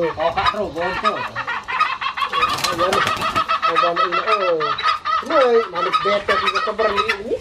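Junglefowl and chickens clucking, with short downward-sliding calls and a fast, even run of ticking clucks from about two seconds in until near the end.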